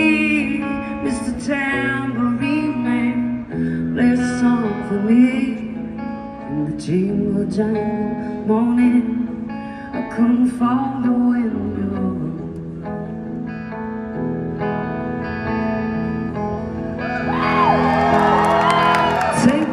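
A woman singing a slow folk-rock song live through a concert PA, with band backing under her sung phrases. It swells slightly louder and busier near the end.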